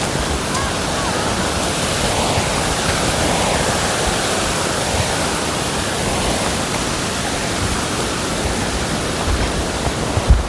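Rushing water of a mountain stream near the top of a waterfall, a steady hiss. Near the end come a few low thumps.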